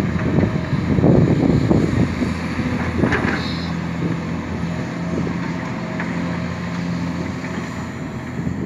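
Hitachi Zaxis 490LCH hydraulic excavator running, its diesel engine droning steadily under work. It is louder for the first second or two, and a brief high chirp comes about three seconds in.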